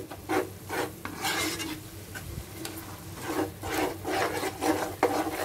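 A spatula scraping and stirring a thick masala in a pan, in repeated strokes about twice a second, over the sizzle of the masala frying in oil. There is a sharp tap near the end.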